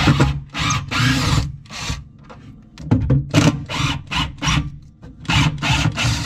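Makita cordless driver backing long screws out of the top of a wooden kitchen cabinet, running in many short stop-start bursts. There is a brief lull about two seconds in.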